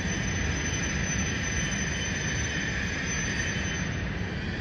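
E5 series Shinkansen train running along the track and pulling away: a steady rumble of wheels on rail, slowly fading, with a thin high-pitched whine that stops near the end.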